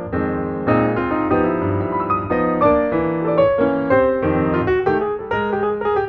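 Piano music playing, a flowing run of notes changing several times a second.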